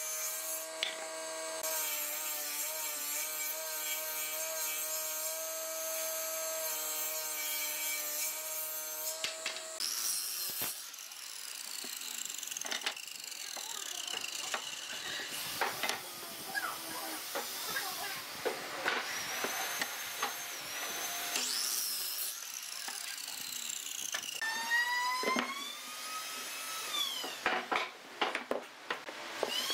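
Woodworking power tools in turn. First a table saw runs steadily and rips boards. Then a miter saw spins up, cuts and winds down in long falling whines, with knocks of timber being handled. Near the end a cordless drill whines up and down in pitch as screws are driven.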